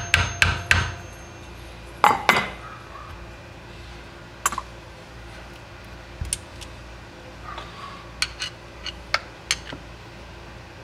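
Hammer tapping a screwdriver wedged into the seam of a 110cc single-cylinder engine's crankcase to wedge the case halves apart: quick metallic taps, about four a second, that stop within the first second. About two seconds in comes a loud metal clatter, then scattered light clinks and knocks as the engine case and tools are handled on the bench.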